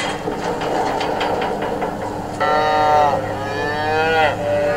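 Newborn Holstein calf bawling: one drawn-out call starting about halfway through, falling and then rising in pitch, over a steady low engine hum. A run of clattering knocks comes before it.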